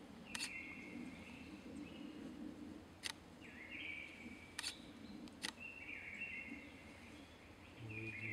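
Olympus DSLR camera shutter firing four times at uneven intervals: sharp single clicks, with short, high, steady tones between them and a brief low rumble near the end.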